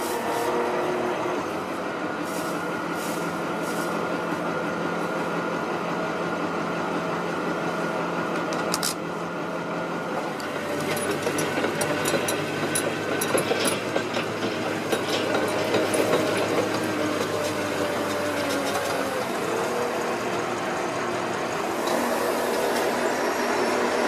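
Diesel engine of a tracked drainage plow machine running steadily, its note shifting about ten seconds in and again near twenty seconds, with scattered metallic clicks and clanks from the machinery.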